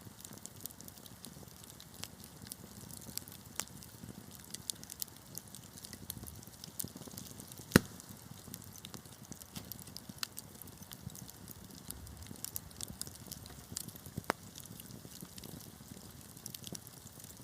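Wood fire crackling: irregular small pops and snaps over a low steady rush of flame, with one loud sharp pop about halfway through.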